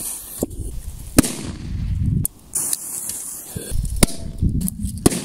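A firecracker fuse hissing and sparking, then a series of sharp firecracker bangs. The loudest comes about a second in, with more near the middle and near the end.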